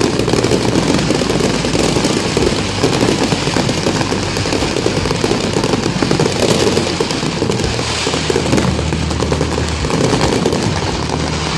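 Dense, continuous crackling and popping of an aerial fireworks display, with music playing faintly underneath.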